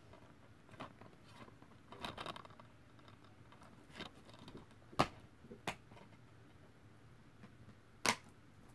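Handling noise from a plastic DVD case: a short rustle, then several sharp clicks, the loudest about five seconds in and another about eight seconds in.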